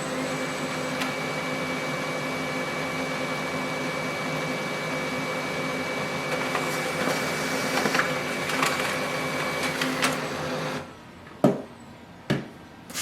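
Brother HL-L2370DW laser printer printing a page: its motors and fan run steadily with a thin high tone, a few clicks come through toward the end, and it stops about eleven seconds in, followed by two sharp clicks.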